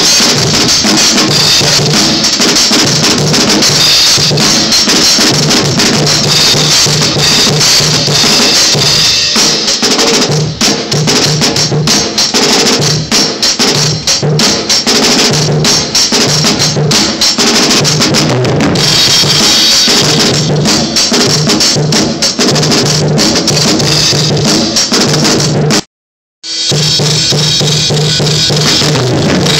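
Drum kit being played continuously, with kick and snare hits. The sound cuts out completely for about half a second near the end, then comes back.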